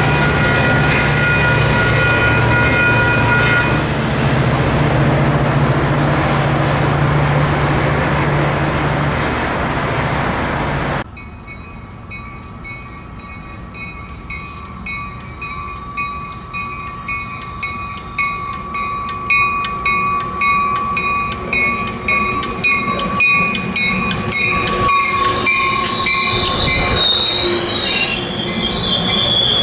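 Caltrain diesel locomotive running loud, with a steady low drone from its engine as it goes down the track. After a cut, a Caltrain passenger train comes into a station and runs past. Its wheels click over the rail, and a high wheel squeal rises near the end.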